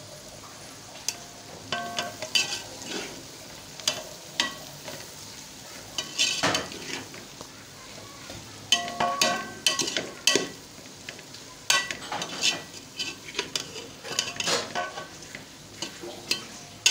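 Metal spatula scraping and knocking against a metal cooking pot as chicken, cabbage and green peppers are stirred, in irregular strokes with brief metallic rings. Under it, a low sizzle of the food frying over a low flame.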